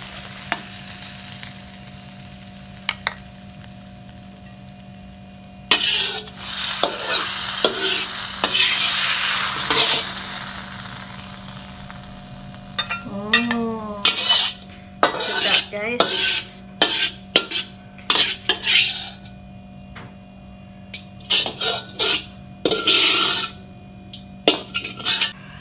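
Paku remudang fern greens sizzling in a pan as they are stirred with a metal spatula, followed from about halfway through by a run of short scrapes and clinks of the spatula against the pan as the cooked dish is taken off the heat. A faint steady electrical hum runs underneath.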